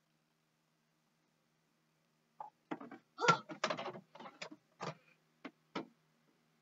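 A run of about a dozen short knocks and bumps, starting a couple of seconds in and stopping near the end, heard from inside a closet; it sounds like the searchers outside the door.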